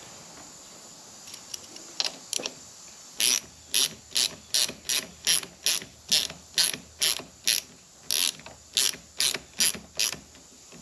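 Hand socket ratchet clicking in short back-and-forth strokes, about two rasps a second from about three seconds in. It is turning an easy-out (screw extractor) set in the pin of a motorcycle's front brake master cylinder, driving the pin back in.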